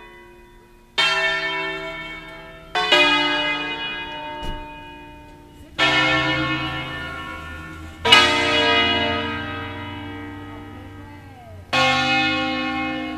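Church bells of an eight-bell peal in B-flat, swung on wheels and rung electro-manually: five separate strokes, each from a bell of a different pitch, ringing out and fading before the next, irregularly a couple of seconds apart.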